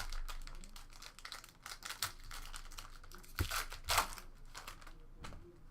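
Trading card packs and cards being handled: a foil wrapper crinkling and a run of quick clicks and snaps as the cards are flicked through, with two louder snaps a little past the middle.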